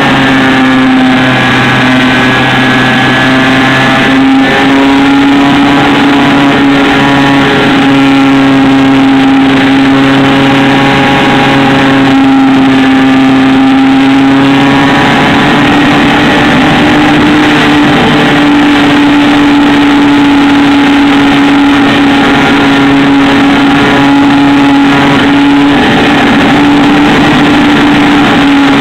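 Model airplane's motor and propeller running steadily, loud and close, heard from inside the fuselage with a rush of air noise; the pitch dips and rises slightly a few times and steps up near the end.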